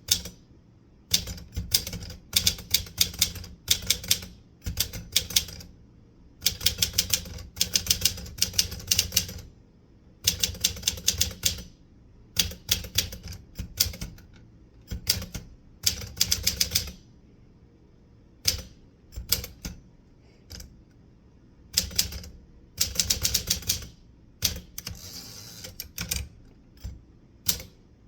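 Typewriter being typed on: runs of rapid key strikes, each a second or two long, broken by short pauses.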